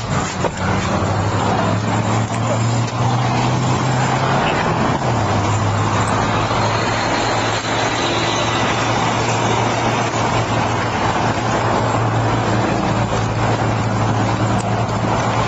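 A vehicle engine idling with a steady low hum that shifts slightly in pitch about five seconds in, under steady roadway noise.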